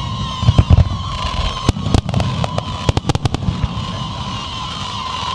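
Fireworks going off: a rapid run of sharp bangs and crackles in the first few seconds, thinning out after, over a continuous hiss with a steady whining tone.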